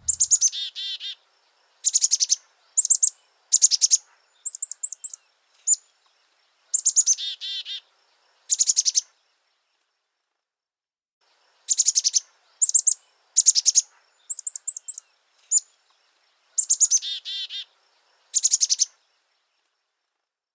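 Bird chirps and calls: short high down-slurred whistles and quick three-note trills, with dead silence between phrases. The same sequence plays twice, a looped birdsong recording laid over the ending.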